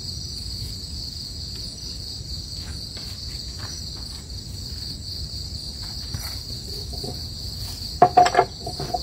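A steady, high-pitched chorus of crickets and other night insects. Near the end, a quick cluster of sharp wooden knocks as bamboo sticks are handled and set down.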